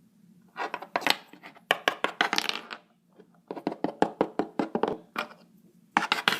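Rapid clicking and clattering of small hard objects, in three bursts, over a faint steady hum.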